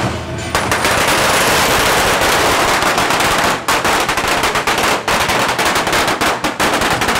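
A long string of firecrackers going off in a rapid, continuous crackle of bangs, starting about half a second in.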